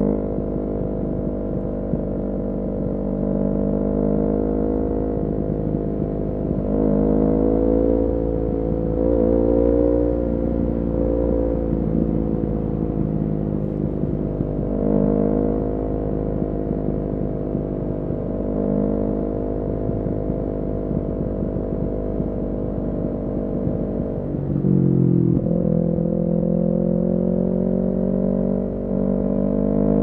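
Kawasaki Ninja 400 parallel-twin engine running through an Akrapovic full-system exhaust while riding, its pitch rising and falling gently with the throttle. Near the end the revs drop sharply, climb quickly back, and then rise steadily as it accelerates.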